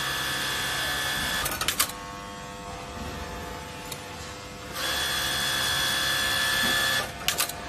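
GOA 777 direct-drive cylinder-bed interlock (coverstitch) sewing machine stitching at speed in two runs. Each run ends in a few sharp clicks, and a quieter steady hum holds between them.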